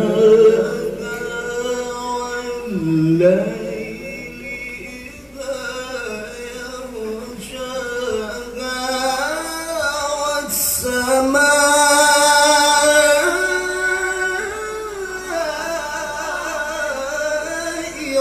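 A man's voice in Quranic recitation (tilawah), drawn out in long melismatic notes that glide and ornament between pitches. In the second half one long phrase climbs step by step to a higher, louder pitch.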